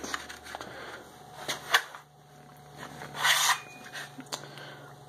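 Faint handling noises from a large Bowie knife being lifted and turned: two light clicks a little over a second in and a short rustle about halfway through, over a faint steady hum.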